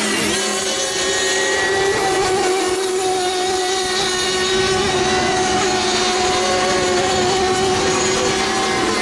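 Several radio-controlled FSR-O 7.5 cc racing boats' small outboard engines running flat out, a steady high-pitched whine whose pitch wavers slightly as the boats race.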